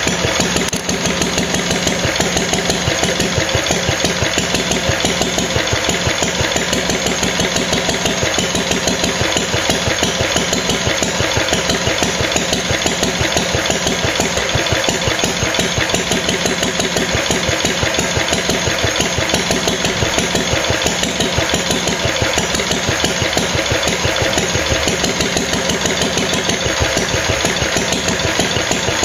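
A 1945 reverse-rotation Lister D single-cylinder petrol stationary engine running steadily, with a fast, even beat of firing strokes.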